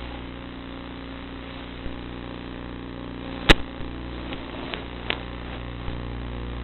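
Zagi flying wing's motor and propeller running at a steady pitch with a rushing noise, heard on board. A sharp click about halfway through, with a few fainter clicks around it.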